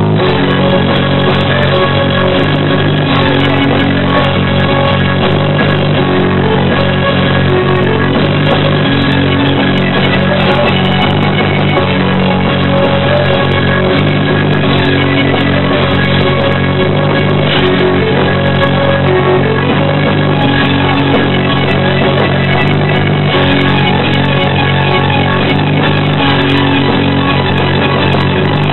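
Live rock band playing loudly and continuously, with electric guitar and drum kit.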